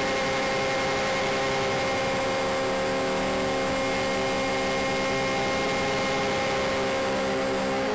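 Motors and propellers of a radio-controlled C-124 Globemaster II model plane, heard from a camera on board in flight: a steady drone of several tones over rushing noise, with some of the tones shifting in pitch near the end.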